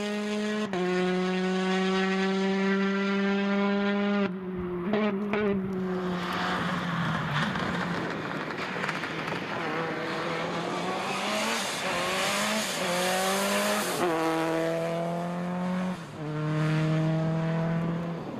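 Rally cars on a tarmac stage, among them a Peugeot 208 and a Subaru Impreza, driven flat out past one after another. The engines are held high in the revs, with a sudden lift and quick gear changes about four seconds in, then the pitch climbs through the gears and drops at each shift before holding high again near the end.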